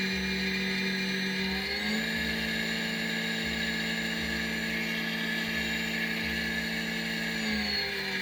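The cutter spindle motor of an Xhorse Dolphin XP-005L key cutting machine is running during its motor test with a steady whine. It steps up slightly in speed about two seconds in and drops back just before the end. The motor is running normally, and the test passes.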